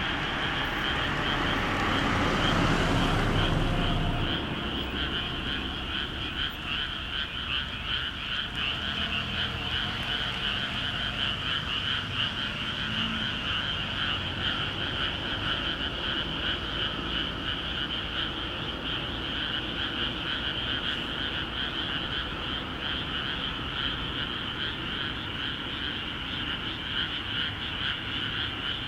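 Dense chorus of many frogs calling from flooded rice paddies, a continuous rapid rattle of croaks. In the first few seconds a low rumble swells and dies away beneath it.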